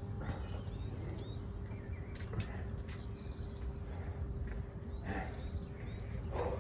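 Birds chirping and trilling in rapid high runs over a steady low background noise, with a couple of heavy, panting breaths near the end as a person recovers after a set of jumping lunges.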